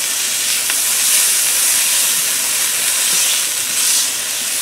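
Minced shallots and capers sizzling steadily in hot oil in a frying pan as they are stirred with a silicone spatula.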